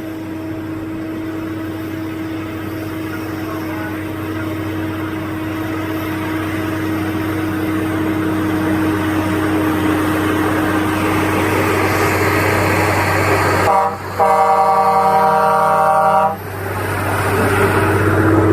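Logging truck's engine running and growing steadily louder, then a horn sounding once for about two and a half seconds near the end, with the engine still running loudly after it.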